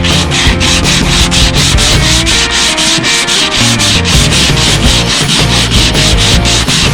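Sanding on a boat's aluminum hull to strip it to bare metal, with quick, even rasping strokes at about four or five a second.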